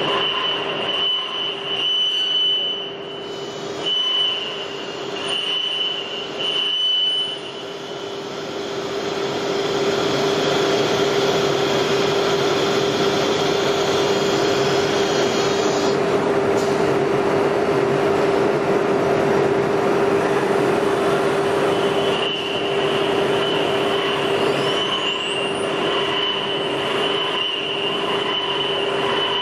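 ATC CNC router spindle whining steadily as the bit cuts grooves in an MDF board, with the hiss of the cutting and the machine's dust extraction, loudest through the middle. Near the end, short rising and falling whines come as the head moves along the gantry.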